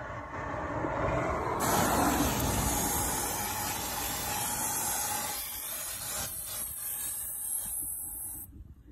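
Aerosol can of ant and roach insecticide spraying into a wall crack: one long steady hiss that cuts off abruptly near the end.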